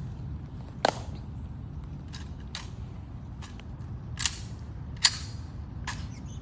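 Sharp snaps from a Tomb of the Unknown Soldier sentinel's drill: about seven single clicks and slaps, spaced irregularly, from metal-tapped heels and hands striking the rifle. The loudest comes about five seconds in.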